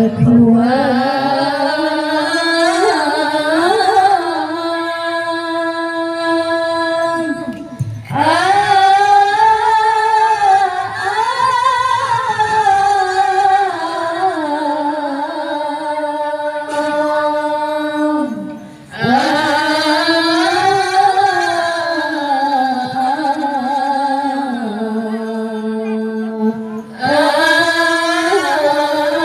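Women's voices chanting a melodic Islamic devotional text into microphones over a PA, in long ornamented phrases with long-held notes and a short breath-break between phrases roughly every eight to eleven seconds.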